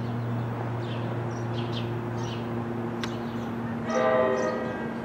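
Diesel locomotive of an NJ Transit train running with a steady low drone, with a short horn blast about four seconds in. Birds chirp faintly.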